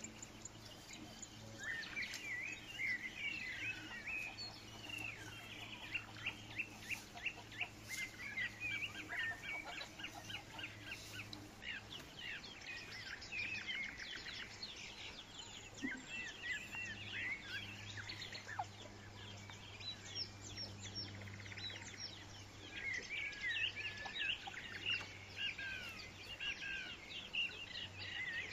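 Many birds chirping and calling busily and continuously, with rapid runs of short chirps, over a low steady hum.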